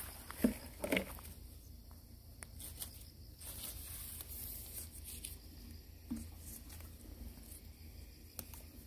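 Faint rustling and soft knocks of someone moving through grass and shrubs on a reservoir bank, with two louder thumps about half a second and one second in.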